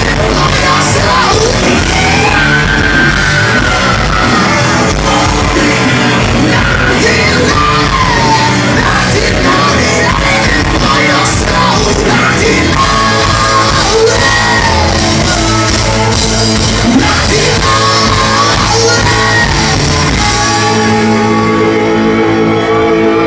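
Rock band playing loudly with a singer shouting and singing over it; about twenty seconds in, the music settles into held notes.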